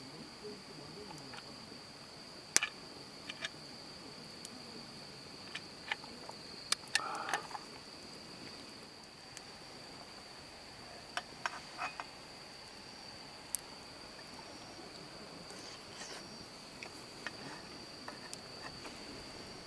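Insects singing a steady, high-pitched continuous trill, with scattered sharp clicks and taps throughout, the loudest about two and a half seconds in and a short cluster around seven seconds in.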